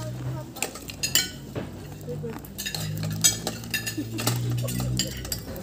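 Spoons and forks clinking and scraping against plates as a group eats at a table: many short, irregular ticks.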